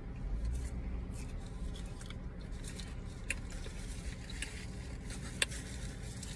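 Quiet car-cabin background: a low steady hum with scattered small clicks and rustles from handling a drink cup and food, the sharpest click about five and a half seconds in.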